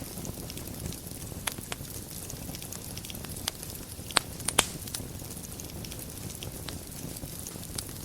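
Wood fire burning in a fireplace: a steady low rumble with scattered crackles, and a quick run of louder pops a little past the middle.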